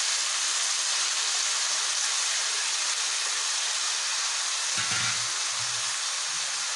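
Freshly added eggplant pieces frying in hot oil in a kadai, a steady sizzle.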